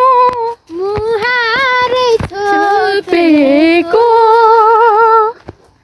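A woman singing unaccompanied in a high voice, holding long notes with vibrato in short phrases, with brief breaks about half a second in and just before the end.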